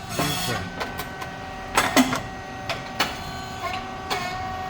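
SYP9502 rice cake popping machine running a cycle: a steady hum with sharp mechanical clacks, and a loud hissing pop about two seconds in as the heated mould opens and releases a puffed rice cake.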